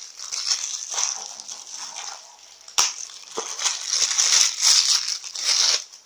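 Clear plastic packaging bag crinkling and crackling as hands pull it open, in uneven bursts with a brief lull and a sharp snap about three seconds in. It stops suddenly near the end.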